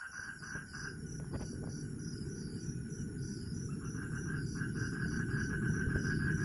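Night insects, crickets among them, calling together: a steady very high trill, an evenly pulsing chirp and a lower buzzing trill. A low rumbling noise runs underneath.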